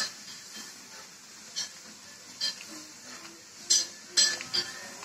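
A kitten's paws and claws scratching and crinkling a laminated plastic sack: a run of short, sharp crinkles, spaced out at first and closer together and louder near the end.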